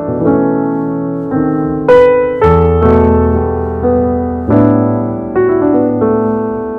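Background piano music: a slow melody of struck notes and chords, each fading away before the next.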